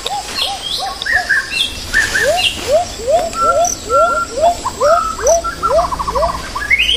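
A rapid series of short hooting calls, each rising then falling in pitch, about three a second, with higher chirps over them and a brief fast trill about six seconds in.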